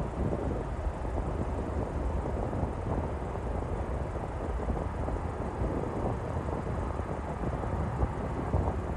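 Distant Boeing 777-200ER's jet engines rumbling steadily as it rolls out on the runway after landing, with wind buffeting the microphone.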